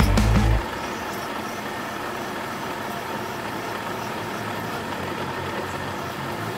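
Vertical milling machine running steadily while its quill is hand-fed to drill a bolt hole through steel plate. A brief loud low rumble sounds in the first half second.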